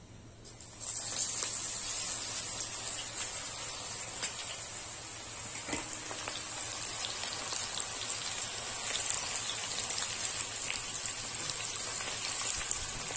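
Spice-coated okra deep-frying in hot oil in a kadhai: a dense, steady sizzle and crackle that starts about a second in, as the okra goes into the oil.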